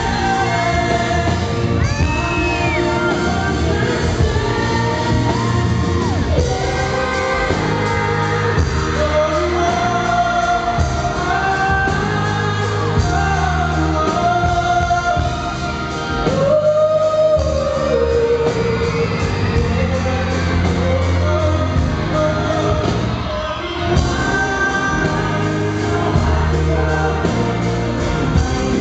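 Live pop song: a male lead vocal sung into a handheld microphone over a backing band, heard through the hall's PA, with a long held note about halfway through.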